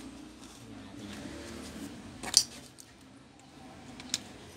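Small metal clinks and clicks as a screwdriver works at a laptop's metal hinge and its screws, with one louder clink a little past two seconds and a sharp click near the end.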